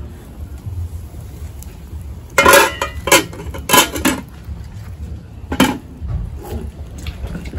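Cooking pots and utensils clanking: a handful of sharp knocks, the loudest cluster about two and a half seconds in, more near three and four seconds, and one near five and a half, over a low steady rumble.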